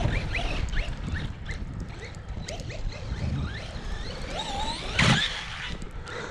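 Brushless electric motor of an Arrma Big Rock 3S RC monster truck whining in short rising bursts as the throttle is blipped, with a louder rev about five seconds in.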